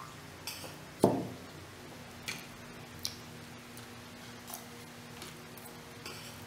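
Quiet eating sounds: a few faint clicks and scrapes of metal forks on ceramic plates, with one sharper clink about a second in.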